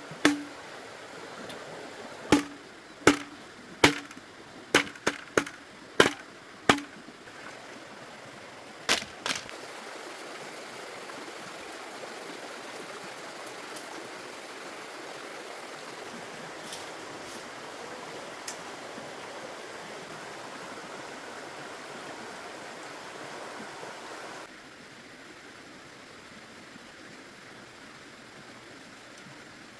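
A series of sharp knocks or chopping strikes, about a dozen in the first ten seconds, each followed by a short low ring. They sit over a steady rushing noise that drops in level about 24 seconds in.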